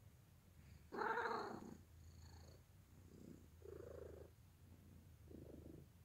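Grey tabby kitten purring steadily and low, with a short, louder pitched sound about a second in and a few softer ones after.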